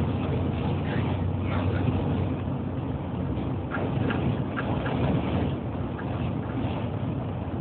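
Steady low rumble of a moving bus heard from inside the passenger cabin: engine and tyre noise on the highway.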